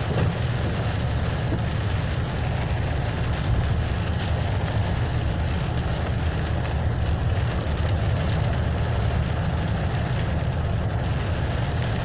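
Steady low rumble of a moving car heard from inside the cabin: engine and tyre noise on a snow-covered road, unchanging throughout.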